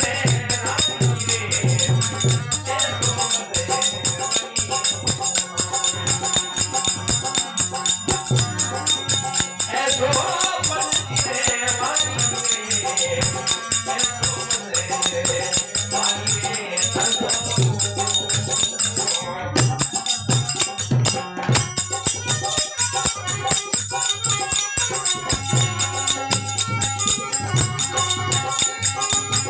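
Instrumental passage of a folk devotional song (vani bhajan): a steady, fast rhythm of shaken, jingling hand percussion over sustained melodic instruments, with no clear singing.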